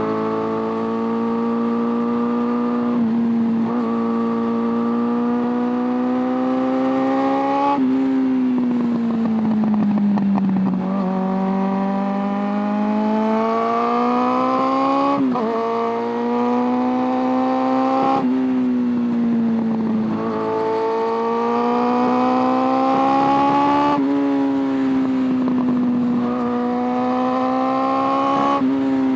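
Carburetted inline-four engine of a Suzuki Bandit 600 motorcycle under way: the pitch climbs as it pulls, then drops back at each gear change, about ten times. There is one longer stretch of falling pitch as it slows for a turn.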